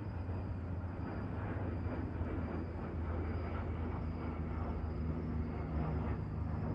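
Aircraft flying unseen above low cloud, heard from the ground as a steady distant rumble.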